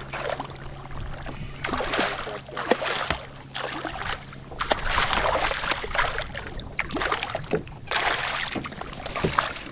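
Hooked fish thrashing at the surface right beside the boat, splashing in several separate bursts that come and go.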